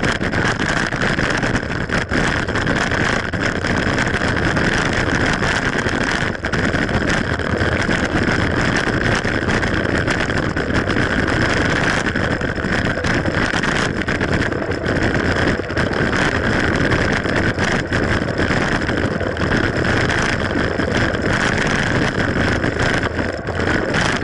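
Wind rushing over an action camera's microphone while a mountain bike rolls along a trail, with frequent brief knocks and rattles from the bike over bumps.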